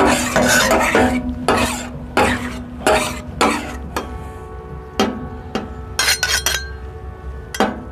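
Two steel spatulas scraping and clanking against a large flat iron tawa while a mound of keema masala is mixed on it. The strikes come thick and fast with scraping in the first few seconds, then as spaced single clacks.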